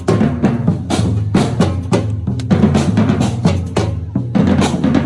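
Music with a driving drum beat: bass drum, snare and other percussion hitting several times a second over a steady bass line.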